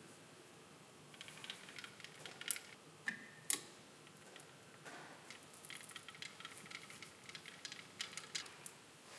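Scattered small clicks and taps of metal parts and hand tools being handled while working on a car alternator, with two sharper clicks around two and a half and three and a half seconds in.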